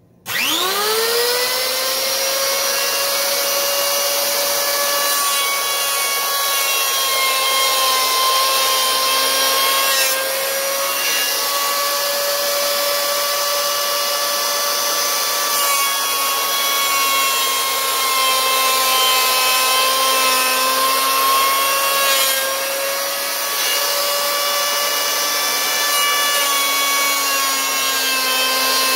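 Makita 1900B 3-inch electric hand planer spinning up with a quickly rising whine, then running loud and steady while planing a rough wood surface in 1/32-inch passes. The motor-and-cutter-head whine wavers a little in pitch and briefly drops in level now and then.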